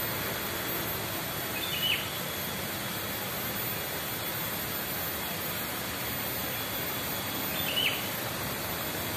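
A steady rushing hiss of outdoor ambience, with a bird giving a short, downward-sliding call twice, about six seconds apart.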